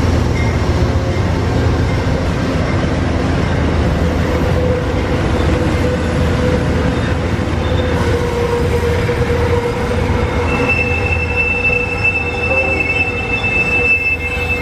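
Amtrak passenger train rolling through the station with a steady low rumble. A thin steady wheel squeal comes in around the middle, and a higher, louder squeal starts about ten seconds in.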